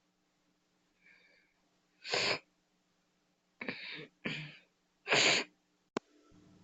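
A person making short, sharp breathy bursts, four loud ones at uneven gaps of about a second, followed by a single click near the end. A faint steady hum lies underneath.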